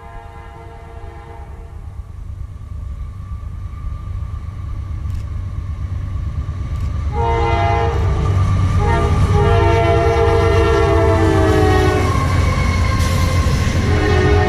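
CSX diesel freight locomotives approaching and passing, their engine rumble growing steadily louder. The lead locomotive sounds its multi-chime air horn in blasts: a short one at the start, two long ones from about halfway with a brief break between them, and another beginning near the end. This is the warning sounded for a grade crossing.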